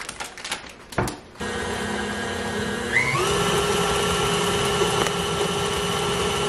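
A few knocks as an ingredient goes into the steel bowl, then a KitchenAid Classic Plus stand mixer's motor starts and its flat beater churns peanut butter cookie dough. About three seconds in the speed is turned up and the motor's whine rises, then it runs steadily at the higher speed.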